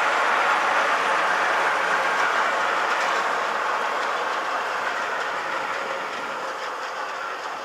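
Freight train of covered hopper wagons rolling past: a steady noise of steel wheels running on the rails that slowly fades over the last few seconds.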